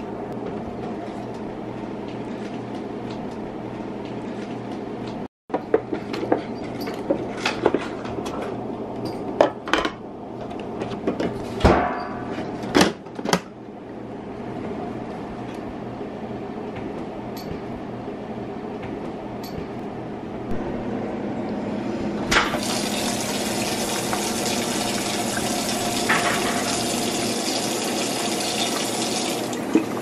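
A few sharp plastic clicks and knocks, then about two-thirds of the way in a kitchen faucet starts running water into the clear plastic tank of a pet water fountain, a steady hiss of filling water.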